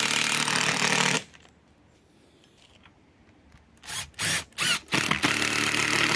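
Cordless drill with a socket running in short spells to drive nuts on rail bolts: a steady run of about a second that cuts off, a pause, a few quick blips of the trigger, then another steady run near the end.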